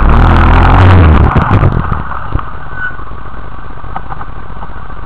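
Quad bike (ATV) engine revved loudly for about two seconds, then running steadily at idle.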